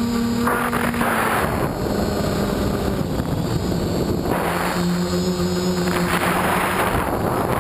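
Spider Quad quadcopter's electric motors and propellers whining at a steady pitch that shifts as the throttle changes, heard from the onboard camera, with several rushes of wind noise on the microphone.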